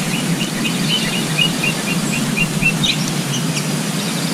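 A small bird chirping repeatedly, about four short high notes a second, which stop a little before the end. A steady background noise runs underneath.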